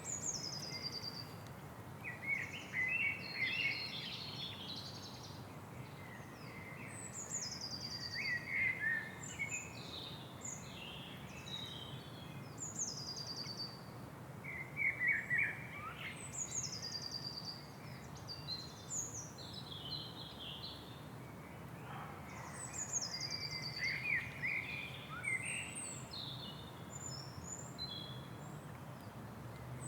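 Swamp ambience with several birds chirping and singing, one of them repeating a short falling song about every six seconds, over a steady low background hum.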